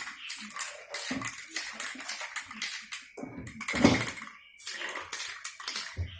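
Irregular light knocks and clatter of small hard objects being handled.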